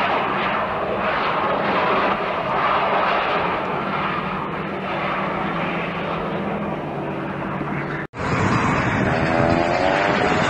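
Steady engine noise from a twin-engine turboprop aircraft on the runway. About eight seconds in the sound cuts off abruptly and gives way to a road vehicle's engine, whose pitch rises and falls.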